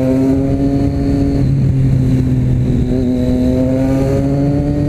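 Motorcycle fitted with an aftermarket Jeskap exhaust accelerating hard. The engine note rises, drops at a gear change about a second and a half in, then climbs again to another shift near the end. The exhaust is very loud even with its baffle insert still in place.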